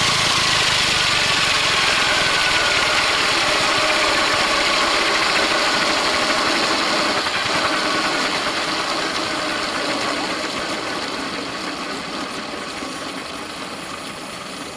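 Radio-controlled scale Airwolf model helicopter on the ground, its motor and main rotor winding down: a steady mechanical whine that slowly falls in pitch and fades from about halfway through.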